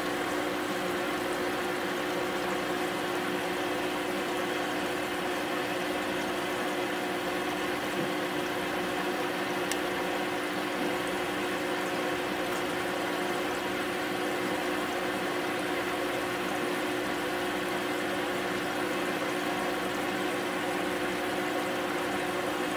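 Steady mechanical hum of aquarium equipment: a constant low drone over an even hiss, unchanging throughout.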